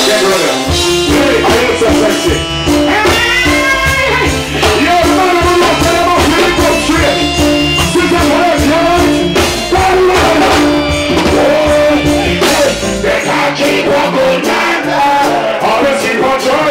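Live reggae band playing with a male singer chanting and singing into a microphone over it. The bass drops out about thirteen seconds in, leaving the voice and upper instruments.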